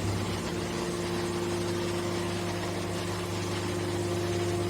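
Hydraulic can baler's electric motor and hydraulic pump running with a steady hum.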